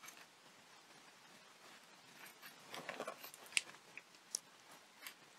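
Faint handling sounds of small pearl beads being threaded onto thin craft wire: a few soft, scattered clicks, the sharpest about three and a half seconds in, over quiet room tone.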